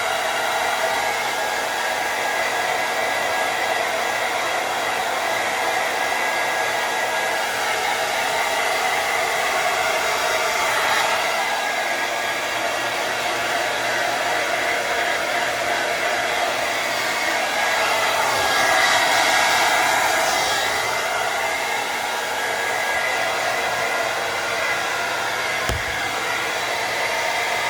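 Hair dryer running steadily, its airflow swelling louder for a couple of seconds past the middle. A brief low bump near the end.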